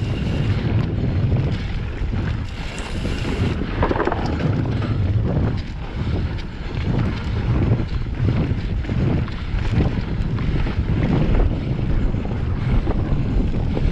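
Wind rushing over a GoPro microphone as a Pyga Hyrax mountain bike descends a dirt flow trail at speed, with steady tyre rumble and frequent small rattles and knocks from the bike over the bumps.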